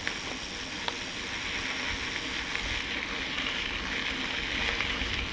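Kellys Gate 50 mountain bike rolling along an unpaved forest trail: a steady hiss and crunch of the tyres on the ground, with a couple of small clicks about a second in.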